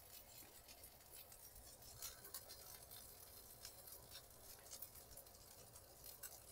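Faint sizzling of turkey burgers frying in a cast-iron skillet, with small scattered crackles.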